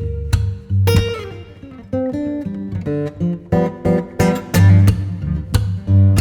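Background music: plucked and strummed acoustic guitar with a bass line, playing a rhythmic pattern.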